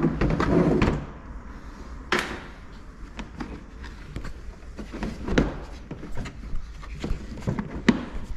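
Scattered clicks and knocks of plastic heater and air-conditioning housing parts being handled and fitted together by hand, with a strong knock about two seconds in.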